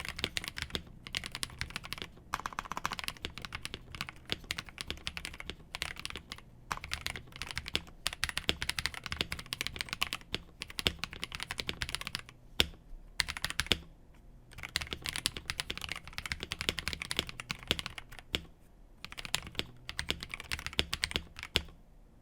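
Continuous typing on a mechanical keyboard with KTT Sea Salt Lemon linear switches: fast runs of keystroke clacks, broken by short pauses, with a few louder single strikes.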